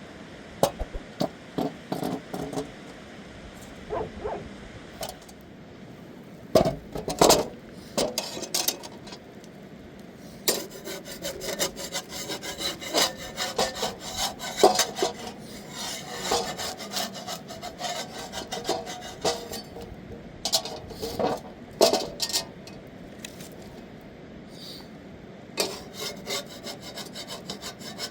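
Rapid, repeated scraping or rasping strokes, with scattered knocks and clicks in the first part before the scraping becomes continuous.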